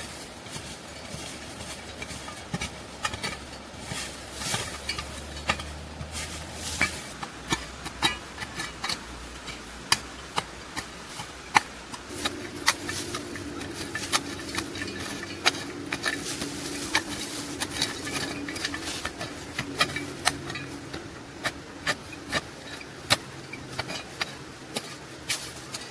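Irregular sharp knocks and clacks of hard objects being struck or set down, sometimes several a second. A steady low hum runs under them for several seconds past the middle.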